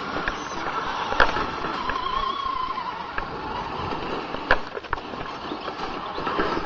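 Tamiya Scania R620 RC truck's electric motor and gearbox whining steadily as it drives over sandy ground, with a wavering whine about two seconds in and a few sharp clicks.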